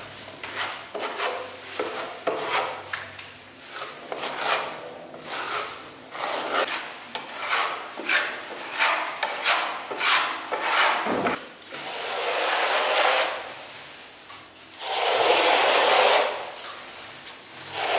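A steel spatula scraping over wet plaster on a window reveal, skimming off small defects. There are many short strokes at first, then from about halfway through come a few longer, louder scraping passes.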